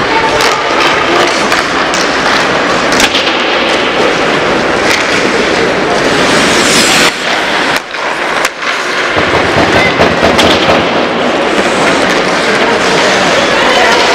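Ice hockey play on the rink: skates scraping and carving the ice, with frequent sharp clacks of sticks striking the puck and each other.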